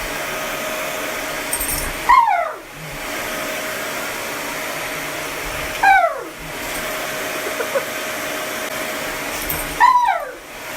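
A dog gives three short whining cries about four seconds apart, each sliding down in pitch. They sit over the steady whirring rush of an electric blower's motor.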